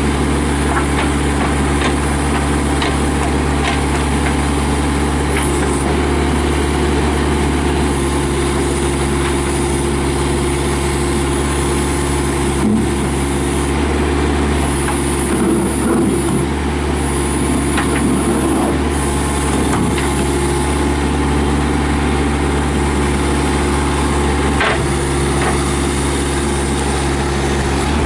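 Bobcat B300 backhoe loader's Kubota diesel engine running steadily, with occasional sharp knocks and clanks from the machine, the loudest about a third of the way in and again near the end.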